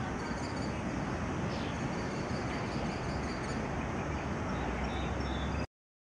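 Outdoor field-recording ambience: a steady, noisy rumble heaviest in the low end, with faint, short, high chirps of small birds over it. It cuts off suddenly near the end.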